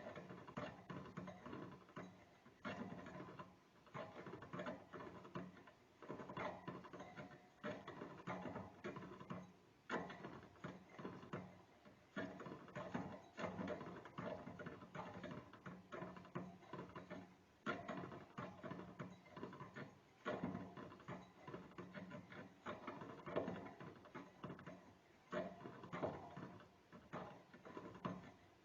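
A small rodent gnawing: rapid, scratchy crunching clicks in runs of a second or two, broken by brief pauses.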